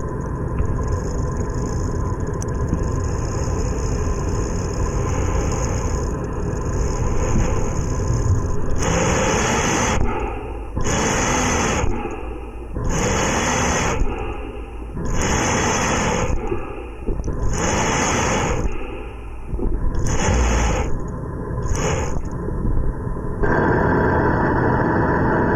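Airflow and breathing noise through the upper airway under nasal CPAP: a steady rushing of air, then from about nine seconds in a run of about eight rhythmic rushing breaths, roughly one every 1.7 seconds, before the steady rush returns.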